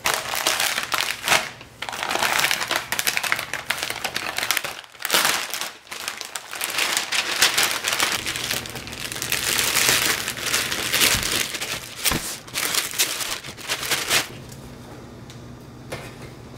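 Plastic courier mailer bags crinkling and crackling as hands handle them and pull them open. The crinkling stops about fourteen seconds in, leaving a faint steady hum.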